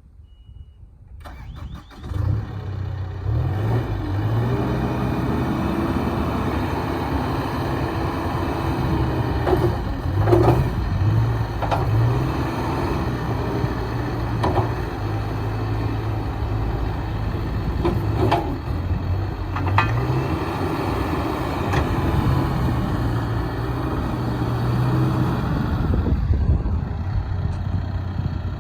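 A 2013 John Deere 310K backhoe loader's diesel engine is cranked and starts about two seconds in, then runs steadily with its pitch rising and falling a few times. A few sharp clanks come through over the engine.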